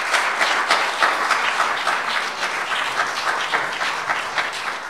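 Audience applauding, a dense round of many hands clapping that slowly eases toward the end.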